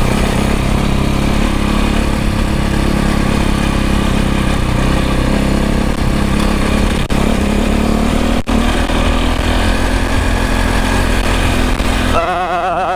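KTM 450 EXC's single-cylinder four-stroke engine running steadily while the bike is ridden along, with wind noise on the helmet-mounted microphone.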